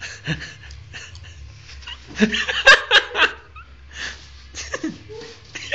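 A small dog snorting and sneezing in short, sharp bursts, most of them about two to three seconds in, as he reacts to the strange taste of a multivitamin tablet.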